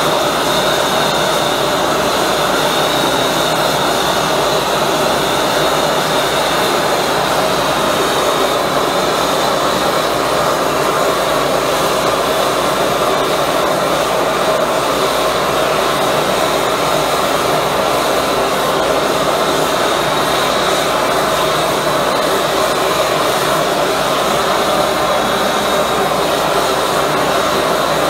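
High-velocity propane burner with compressed-air assist running at full flame, a loud, steady rushing noise with a faint high whistle.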